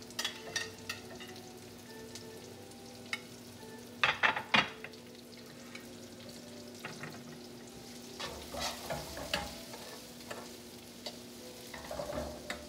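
Sliced celery and carrots sizzling softly in hot oil in a nonstick pan while being tossed with metal tongs, with scattered clacks and scrapes of the tongs, loudest about four seconds in. A steady low hum runs underneath.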